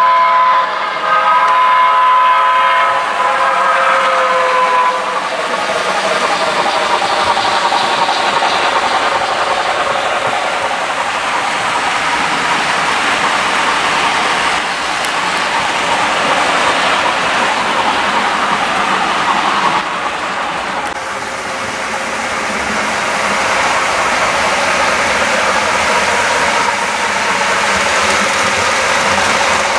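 Model trains running on a layout. For the first few seconds a sound-equipped locomotive sounds a multi-note whistle chord. After that there is a steady rolling noise of the train on the track, which eases briefly about twenty seconds in.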